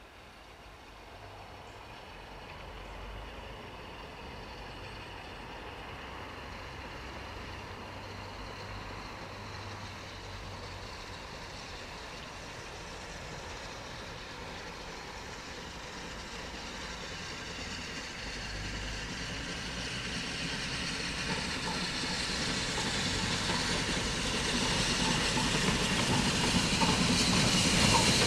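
Steam train approaching, growing steadily louder as it nears, its noise strongest at the end.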